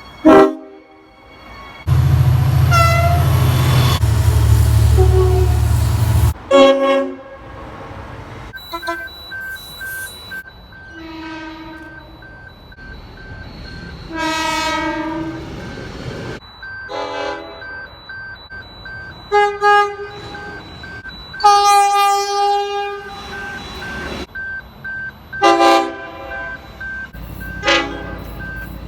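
A string of train horn blasts from different trains, cut one after another: several short toots and a few longer blasts of about two seconds, each a steady chord. A loud low rumble underlies the stretch from about two to six seconds in.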